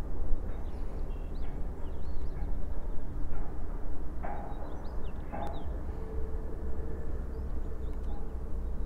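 Outdoor ambience: a steady low rumble of wind on the microphone, with small birds chirping now and then.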